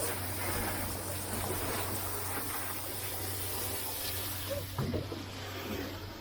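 Running water, an even rushing hiss, over a steady low hum, with a few faint knocks about five seconds in.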